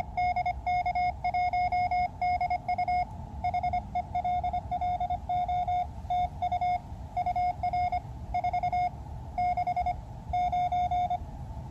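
Morse code (CW) received on an Elecraft KX2 transceiver: a steady tone of about 700 Hz keyed on and off in dots and dashes. It is another station sending its call sign and name.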